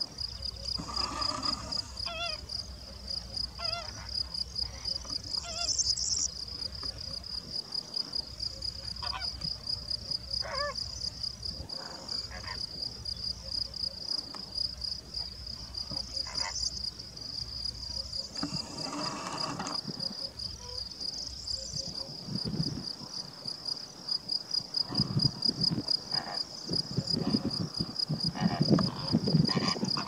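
A steady, fast-pulsing high insect chirring runs throughout, cricket-like, with scattered short honking calls from a flock of greater flamingos. In the last third an irregular low rumbling comes in and becomes the loudest part.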